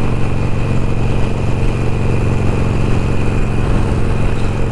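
Cruiser motorcycle engine running at a steady cruise, with wind and road noise, heard from the rider's on-board camera. The engine note holds steady throughout, with a thin high whine underneath.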